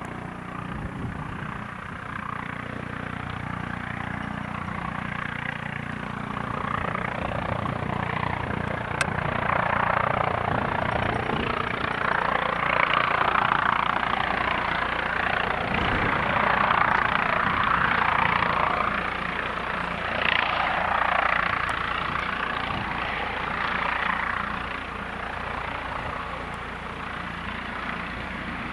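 Eurocopter EC155 twin-turbine helicopter on approach: the rotor and turbine noise swells as it comes in, is loudest in the middle stretch, then eases somewhat as it settles into a low hover just above the ground.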